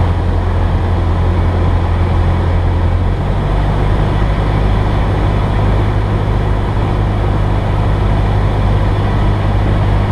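Cessna 172S's four-cylinder Lycoming engine and propeller droning steadily in flight, with a slight change in tone about three seconds in.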